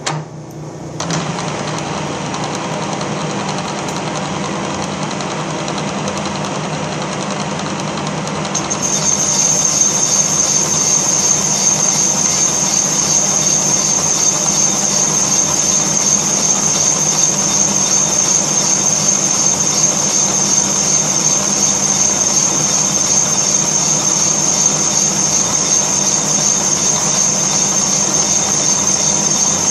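1942 Giddings & Lewis Model 25 horizontal boring machine running, its boring bar turning in the rear main seal bore of a Ford 302 engine block. The machine starts about a second in; about nine seconds in it grows louder and a high, steady whine joins.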